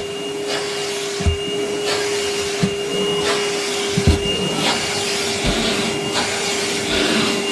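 Numatic Henry cordless cylinder vacuum cleaner running steadily, its attachment worked slowly over fabric: a constant motor hum with a thin high whine above the rush of suction. A few dull knocks about a second and a half apart.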